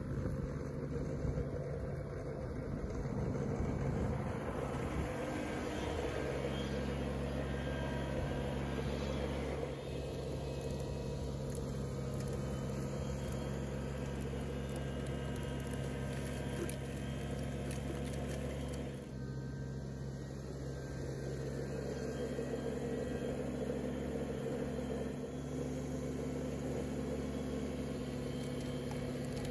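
Compact tractor engine running at a steady speed, its note shifting slightly a few times.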